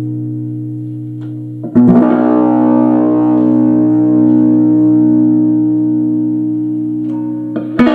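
Aria STG electric guitar through an amplifier, played on its middle pickup: a chord ringing and fading, strummed again about two seconds in and left to ring out, then strummed once more near the end. A sparkly sound.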